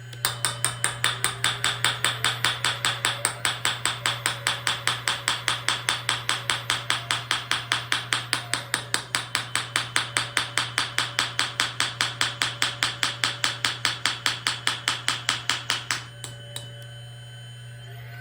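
Lesu scale-model hydraulic breaker (jack hammer) hammering at a fast, even pace of about four to five strikes a second, over a steady low hum. The hammering stops suddenly near the end, followed by a couple of faint clicks.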